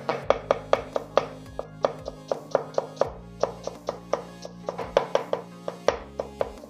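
Kitchen knife rapidly chopping shallot into mince on a wooden chopping block, about four or five quick chops a second. Background music plays underneath.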